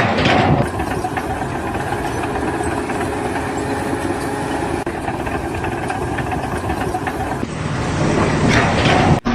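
An engine running steadily, with a change in the sound about seven and a half seconds in.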